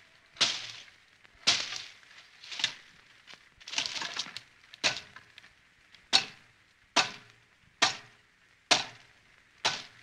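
Bolo knife chopping: about ten steady blows, roughly one a second, each a sharp strike that dies away quickly.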